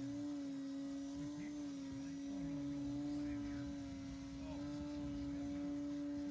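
Electric motor and propeller of an E-flite Turbo Timber RC plane in flight, a steady hum whose pitch wavers only slightly.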